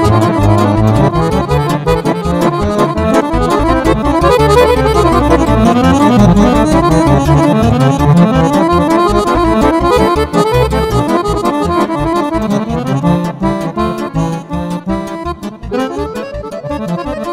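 Accordion playing fast, winding runs of Romanian lăutărească music over keyboard accompaniment. The playing thins out and gets quieter in the last few seconds.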